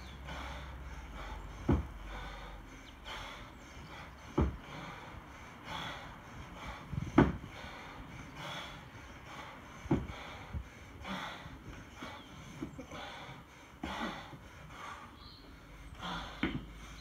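A kettlebell lifter breathing hard and forcefully through a set of one-arm long cycle (clean and jerk) with a 24 kg kettlebell. A dull thud comes about every three seconds, once per repetition, six or so in all.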